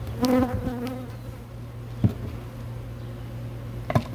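Honeybees buzzing around an open hive, with one bee passing close in the first second as a loud, strong hum. Two sharp knocks, about two seconds in and near the end, as the hive is being closed up.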